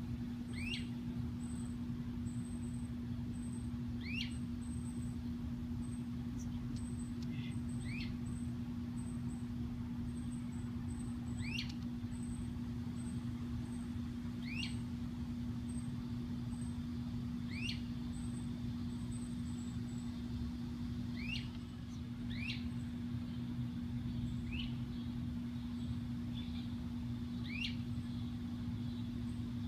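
Great crested flycatchers giving short rising whistled calls, about a dozen, one every two to four seconds, over a steady low hum and rumble.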